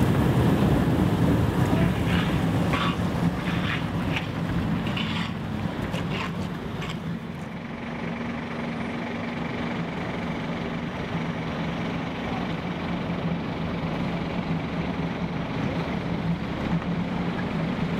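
Düwag tram standing at a stop, its equipment giving a steady low hum with a few held tones, over street noise. A few short higher-pitched sounds come in the first several seconds.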